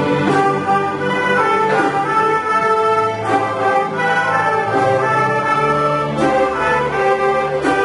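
Orchestral music with brass instruments, playing sustained chords that change every second or so.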